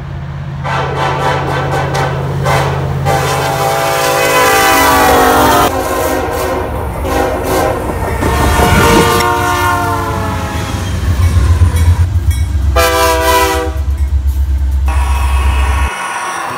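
Diesel freight locomotives sounding multi-chime air horns, two long blasts and a shorter one, over a steady low diesel engine rumble. Near the end the rumble cuts off abruptly to a quieter, thinner whir.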